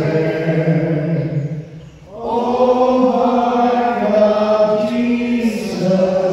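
A small group of worshippers singing a hymn in unison, in long held notes. The voices break off briefly about two seconds in for a breath, then carry on.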